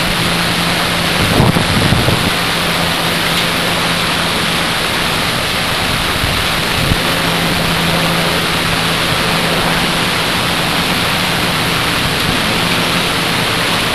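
Duckboat engine running under a steady wash of wind and water noise while under way on the river, with a low, even hum throughout.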